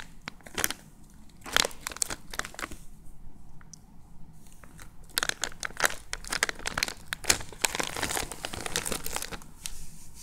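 Clear plastic packaging crinkling as a squishy toy is squeezed and handled inside its sealed bag, in irregular bursts, with a quieter spell about three to five seconds in.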